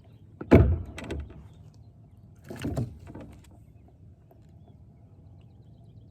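Knocks and thumps on a kayak as a just-landed bass is handled and unhooked. A loud thump comes about half a second in, smaller knocks follow, and a second thump comes around two and a half seconds in.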